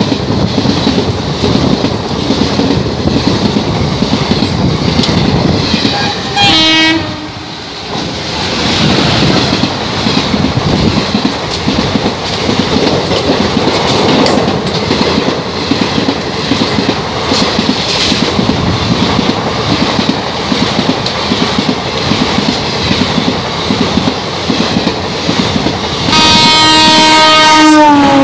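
Express train coaches rushing past at speed, with a fast, steady clickety-clack of wheels over rail joints. A short horn blast sounds about a quarter of the way in. Near the end a locomotive horn sounds for about two seconds, its pitch dropping as the locomotive passes.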